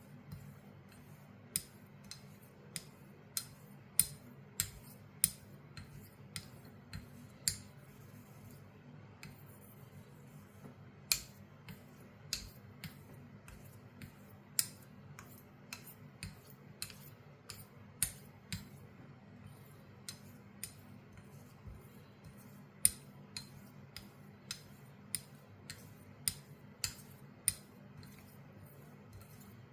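Sheffield straight razor being honed: sharp, irregular clicks, about one to two a second, as the blade is flipped and set down on the hone between strokes. A steady low hum runs underneath.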